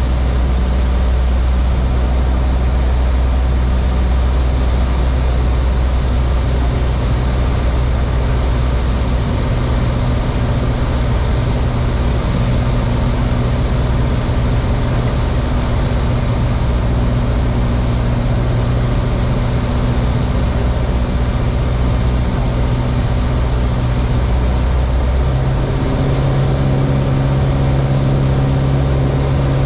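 Piper Warrior's four-cylinder Lycoming piston engine and propeller droning steadily, heard inside the cockpit, over a hiss of wind. About 25 seconds in, the engine's tone shifts.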